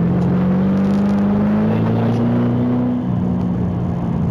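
Car engine pulling hard, heard from the car itself, its pitch climbing slowly, then dropping about three seconds in as the driver shifts up or lifts off, and running steady after that.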